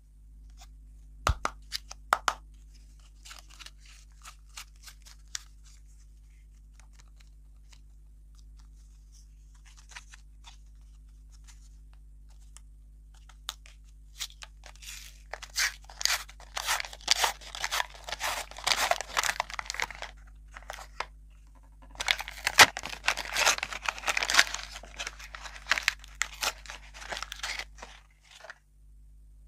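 Plastic wrapper of a surprise candy cone being peeled and torn open by hand, crinkling in two long stretches. There are two sharp clicks near the start.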